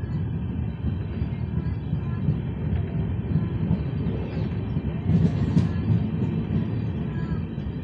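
Train running along the track, heard from on board: a steady low rumble of wheels on rails, louder for a moment about five seconds in.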